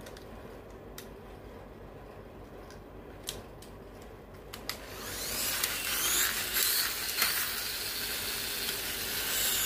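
Mechnimals toy battle cars being wound by their pull strings: a few light plastic clicks, then from about five seconds in a loud, high whirring of the spinning gears and wheels, its pitch gliding.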